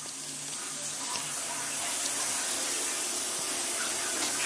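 Shower running: a steady hiss of water spray that grows a little louder over the first couple of seconds, then holds even.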